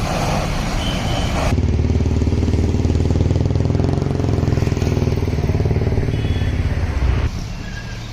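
A motor vehicle engine running steady and low, close by in street noise, starting and stopping abruptly about a second and a half in and about seven seconds in.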